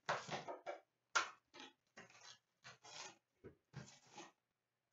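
Cardboard trading-card boxes being handled and one torn open by hand: a quick, irregular run of short scrapes and rustles of cardboard.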